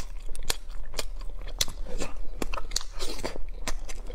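Close-miked biting and chewing of a filled Spider-Man jelly candy ball, an irregular series of sharp crunches and clicks.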